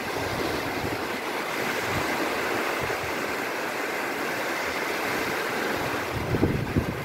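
Small waves washing and breaking in shallow sea water, a steady rushing wash, with a few low bumps near the end.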